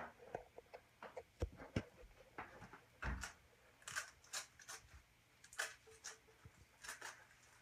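Faint handling noises: scattered light clicks and knocks with a few short rustles, from paper strips being pulled off the screen of a CRT television.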